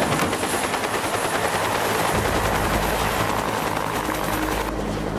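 Bell UH-1D 'Huey' helicopter hovering just above the pad, its two-blade main rotor giving a steady, rhythmic chop over the turbine; a deep low rumble joins about two seconds in.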